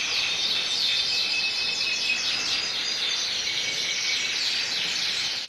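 Canaries singing: a steady stream of rapid, high-pitched chirps and trills made of quick downward-sweeping notes.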